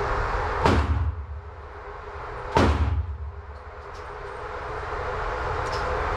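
Two gunshots on an indoor range, about two seconds apart, over the steady running of the motorized target carrier.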